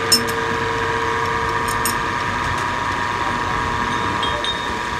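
Metal lathe's drive running with a steady whine, with a sharp metal clink just after the start and a few more near two seconds in as the chuck key is worked in the chuck.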